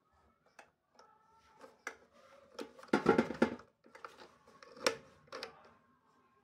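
Plastic clicks and knocks from an air fryer basket's handle and release button being pressed and handled, with a louder scraping rustle about three seconds in and a sharp knock near five seconds.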